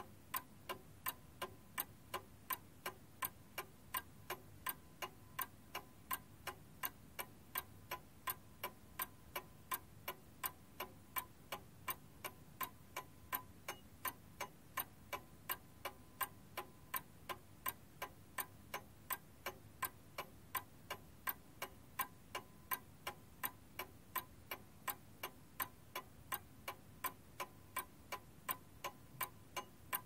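Domestic chiming clock ticking steadily, an even tick-tock of about two and a half ticks a second, with no chime struck.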